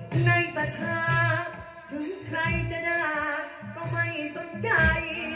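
Amplified likay (Thai folk opera) singing: a solo voice holding long, wavering notes over instrumental accompaniment with a regular low beat.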